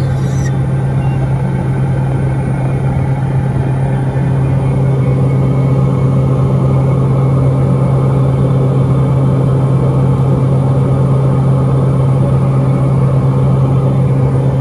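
Cabin noise of a Piper Meridian in flight: its Pratt & Whitney PT6A-42A turboprop and four-blade propeller make a loud, steady drone with a strong low hum, growing a little louder about four seconds in.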